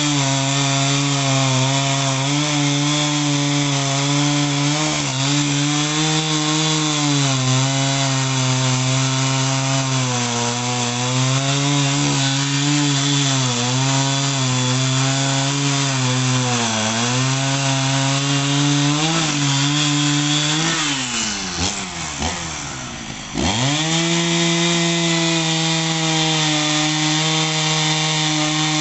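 Two-stroke chainsaw running at high revs while cutting eucalyptus logs, its engine pitch dipping again and again as the chain bites into the wood. About three quarters through, the revs fall away for a couple of seconds, then jump straight back to full speed.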